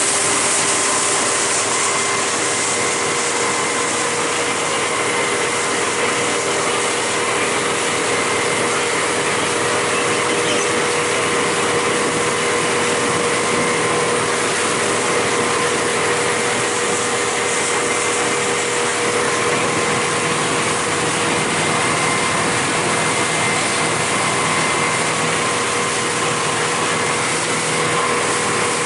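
Mercury outboard motor running steadily at speed, with a constant whine over the rush of water along the hull and wake.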